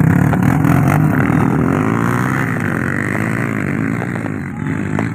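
A car engine running loudly and revving, its pitch bending down and back up in the middle.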